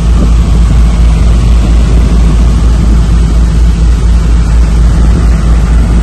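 Rooftop package air-conditioning unit running: a loud, steady low hum and rumble from its fans and compressor.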